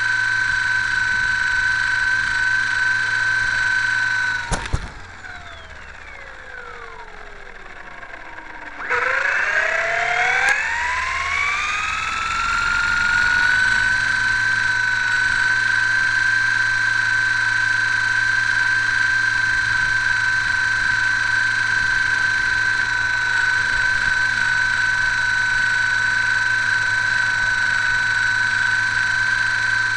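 Motor and propeller of a radio-controlled Hurricane model plane, heard from a camera mounted on the plane, running at a steady high whine. About four seconds in, the throttle is cut with a click and the motor winds down in falling pitch. About four seconds later it is throttled back up, the whine rising until it holds steady again.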